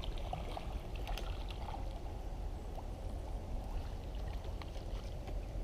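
Steady low rumble with water sounds, the kind wind on the microphone and water lapping make at a pond's edge, with scattered light clicks.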